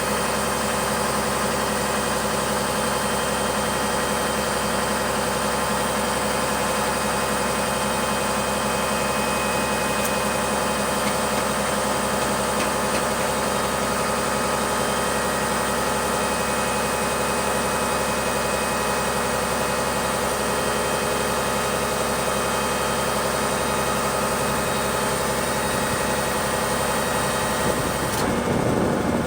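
Unimog FLU419's diesel engine idling steadily. In the last second the sound shifts, with the high end dropping away and the low end growing louder.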